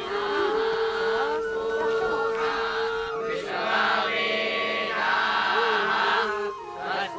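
A held droning note with a voice wavering over it, then, about three and a half seconds in, a group of young men chanting in unison.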